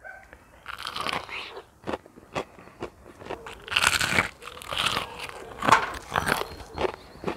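Biting into and chewing a crispy deep-fried, flour-breaded chicken fillet bite: repeated crunches of the fried breading, with the loudest run of crunches from about four seconds in.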